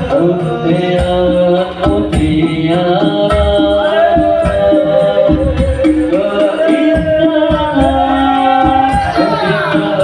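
Music: singing, with the melody bending and running on throughout, over drum and tambourine-like percussion.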